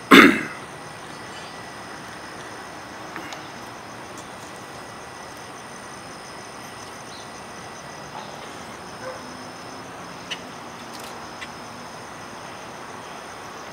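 Hushed outdoor ambience: a steady hiss with faint, steady high-pitched tones, during a crowd's minute of silence. A brief loud burst of noise comes right at the start, and a few faint ticks follow.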